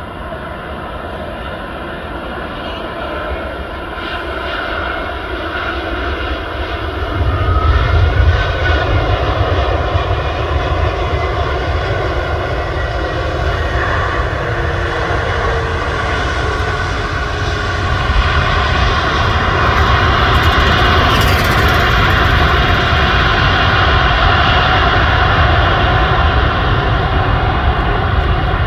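Jet engines of a Singapore Airlines Airbus A380 (Rolls-Royce Trent 900s) running loud as the jet moves along the runway. The noise builds, and about seven seconds in a deep rumble sets in and stays to the end.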